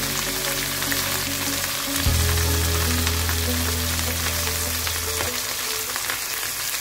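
Whole gilt-head sea bream sizzling as it fries in shallow oil in a pan, a steady hiss. Background music with long held low notes plays under it and stops about five seconds in.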